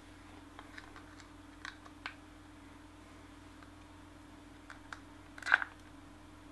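Sparse small clicks and taps of a magnetic antenna mount being handled while a screwdriver works at its screw, the loudest clatter about five and a half seconds in. A faint steady hum runs underneath.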